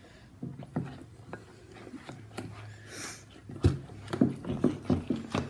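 Sticky borax slime being worked by hand, with wet clicks and squelches that come faster for the last two seconds or so.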